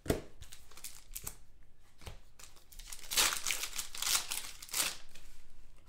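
Wrapper of an Optic basketball card pack crinkling and tearing as the pack is opened, loudest in the middle of the stretch. A few sharp flicks of cards being handled come first.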